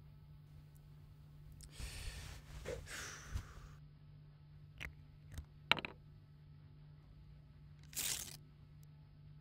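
Plastic water bottle being handled: a couple of seconds of crinkling as it is picked up, then three sharp clicks and a short hiss near the end, over a steady low hum.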